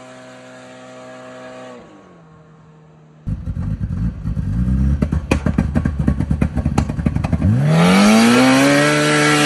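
Turbocharged Polaris RZR Pro R engine running steadily, then its revs drop about two seconds in. After a sudden jump in loudness a little past three seconds it runs rough with rapid crackling for a few seconds, and near the end the revs climb in one long rise as it accelerates hard.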